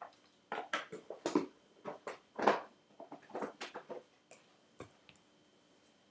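A deck of oracle cards being handled and shuffled by hand: a run of short, irregular rustles and slaps, thickest in the first four seconds, with a few lighter ones near the end.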